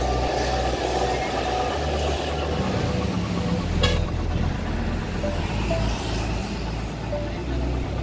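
Road traffic passing close by: buses, cars and a small pickup driving past, with music underneath. A single sharp click comes a little before halfway.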